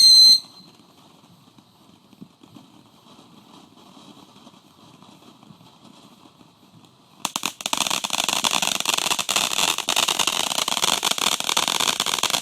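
A firework's falling whistle ends in the first half second. About seven seconds in, a ground fountain firework starts spraying with a loud, dense crackling hiss that keeps going.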